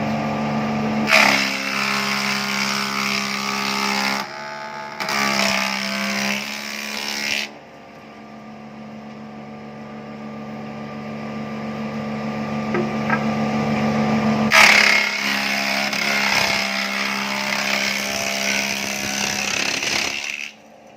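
Woodworking machine for making broom handles running with a steady motor hum, cutting wood in three loud spells: from about a second in to four seconds, from five to seven and a half seconds, and again from about fourteen and a half seconds to near the end. Between the second and third cuts only the motor is heard, growing gradually louder.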